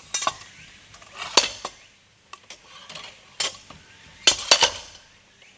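Logosol Smart Splitter's weight dropped under its own weight onto the blade, splitting firewood: several sharp metallic clanks with a short ring, two close together about four seconds in.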